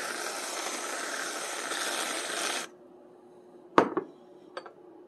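Aerosol can of whipped cream spraying with a steady hiss, which cuts off abruptly after about two and a half seconds. About a second later comes a sharp, loud knock with a quick second one, then a fainter click.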